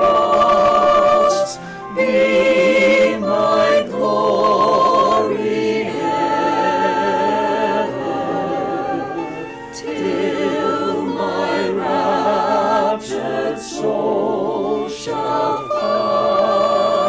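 Mixed choir of men's and women's voices singing a hymn a cappella in harmony, with vibrato on held notes. The phrases are broken by several short pauses.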